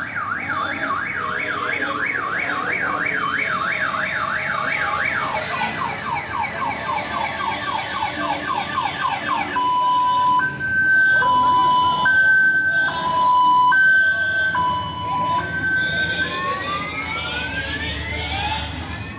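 Electronic vehicle siren cycling through its modes: a fast yelp warbling about three times a second, then slower sweeps, then a two-tone hi-lo switching back and forth about once a second, which is the loudest part, and rising wail sweeps near the end.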